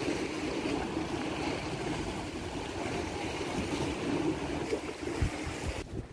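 Small sea waves washing and splashing against shoreline rocks in a steady hiss, with some wind rumble on the microphone.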